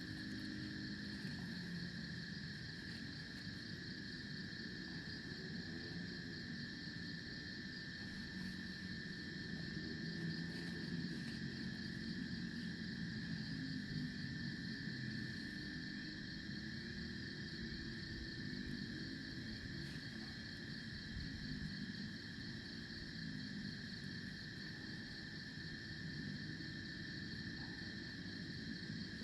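Crickets and other insects trilling steadily in several unbroken high-pitched bands. A low, faint drone sits underneath.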